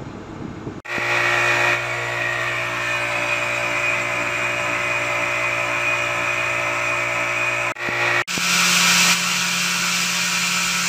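Small electric pressure washer running steadily, motor and pump giving a low hum with a whine above it, drawing water through a hose from a plastic drum. It starts abruptly about a second in, drops out briefly near eight seconds, then runs on with a slightly different hum.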